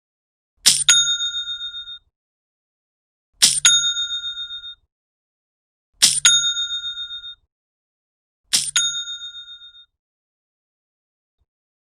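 Shopify new-sale notification, a 'cha-ching' cash-register sound effect, played four times a few seconds apart. Each is a sharp click followed by a bright bell ring that fades away over about a second.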